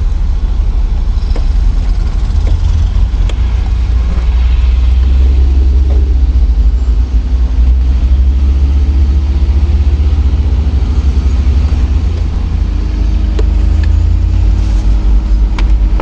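Danfo minibus engine running in moving traffic: a heavy low rumble, with the engine pitch rising and falling slightly as it pulls, and a few light knocks.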